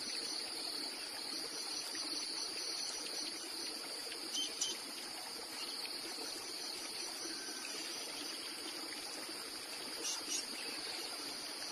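Crickets chirping in a steady, high, even trill over the soft rush of a flowing stream, with two brief louder chirps about four and ten seconds in.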